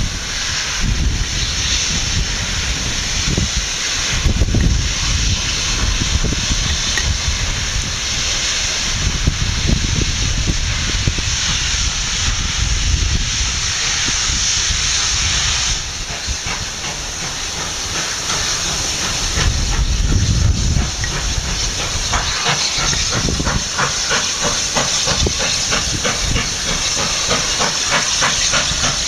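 Steam locomotive 3801, a streamlined NSW C38-class 4-6-2, starting away with its train: a loud, steady hiss of steam from the open cylinder drain cocks over a low rumble. A quick, even beat comes in for the last several seconds as it moves off.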